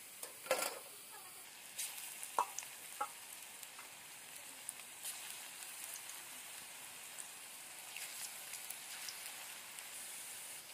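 Gram-flour-battered ridge gourd pakoras deep-frying in hot mustard oil in an iron kadhai, a steady sizzle. A steel spatula knocks and scrapes against the pan a few times in the first three seconds.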